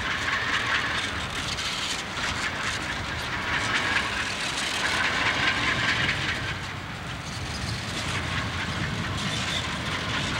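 Diesel-electric locomotives rolling slowly past close by, their engines running with a steady rumble.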